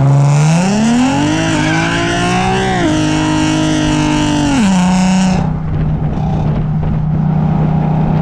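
Infiniti G37 sedan's 3.7-litre VQ V6 under hard acceleration, its pitch climbing steadily for about three seconds and holding high. Around four and a half seconds in, the pitch drops as the throttle eases, and the engine settles to a steady cruise.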